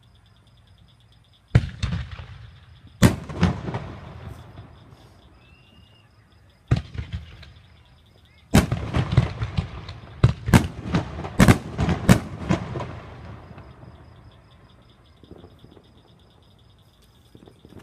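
Fireworks going off: a few single sharp bangs with crackling tails, then a quick volley of about a dozen bangs in the middle that dies away into crackle.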